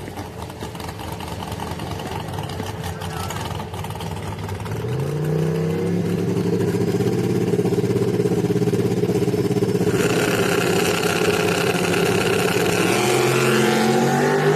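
Drag-racing pickup trucks' engines at the starting line: running low at first, brought up in pitch about five seconds in and held there, then rising again near the end as the trucks launch down the quarter mile.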